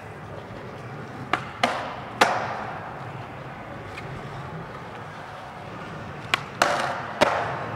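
Skateboard tricks: two groups of three sharp clacks and landing slaps, about a second in and again about six seconds in. Each group is followed by a rush of wheels rolling that fades off.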